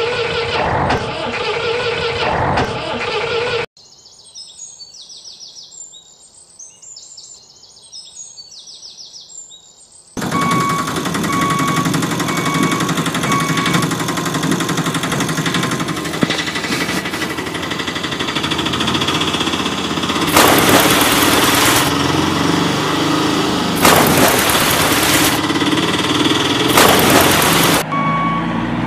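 Dubbed truck sound effects. A truck engine runs, then cuts out about four seconds in to a quiet stretch of repeated high chirps. The engine comes back with a reversing beep for a few seconds, followed by three long bursts of hiss near the end.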